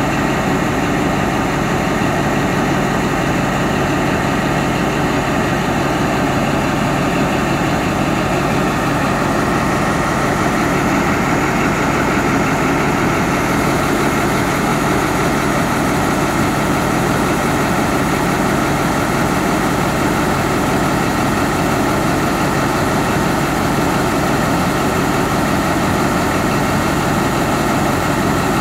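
Diesel engine of Thai State Railway Alsthom ALS-class diesel-electric locomotive no. 4118 idling steadily, a constant low drone heard up close.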